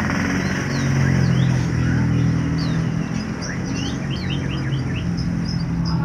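Domestic canary chirping in short, high, sliding notes, with a quick run of notes a little past the middle, over a steady low drone.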